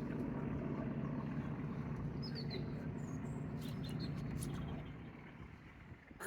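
A steady low rumble that fades away about five seconds in, with a small bird chirping briefly a few times in the middle and a sharp click at the end.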